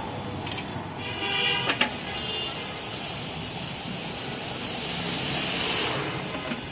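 Street-side cooking ambience: a steady hiss of gas burners under the pitha pans, with a short pitched tone about a second in and a click just before two seconds. The hiss swells louder about five to six seconds in.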